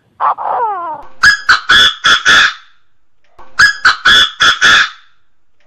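Chinese francolin calling. A short falling note comes first, then its loud, rapid five-note phrase twice, the second about two seconds after the first.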